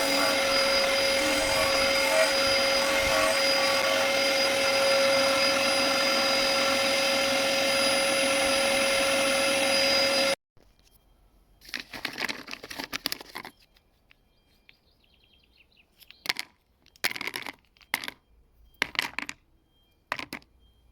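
Bosch GTS table saw motor running steadily with a constant whine, cutting off abruptly about halfway through. It is followed by near silence and a few short, quieter noises.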